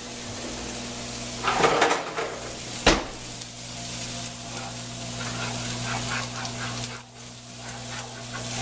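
Chicken pieces sizzling steadily in a frying pan while a plastic spatula stirs instant mashed potato flakes into milk in a saucepan, with a louder scrape about a second and a half in and a sharp knock against the pot about three seconds in.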